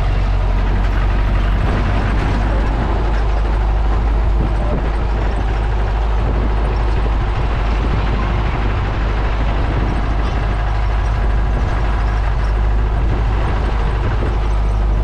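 Jeep engine running steadily while the vehicle is under way, a constant low rumble with noise over it.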